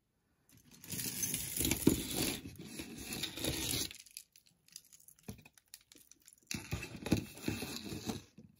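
Jewelry and hands scraping and sliding across a poster board, a crinkly rustling in two stretches: one starting about a second in and lasting about three seconds, another near the end.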